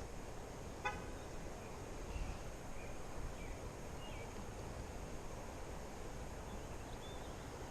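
Steady low outdoor rumble along a river, with one short, honk-like pitched call about a second in and a few faint, high bird chirps scattered through.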